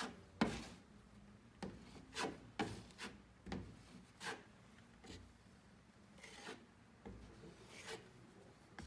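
A 6-inch steel putty knife spreading drywall joint compound over a patched hole in the wall, in short scraping strokes back and forth, about a dozen in all.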